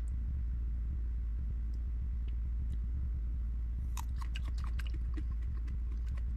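Raw garlic with strawberry jam being bitten and chewed, crisp crunching clicks starting about four seconds in, over a steady low hum.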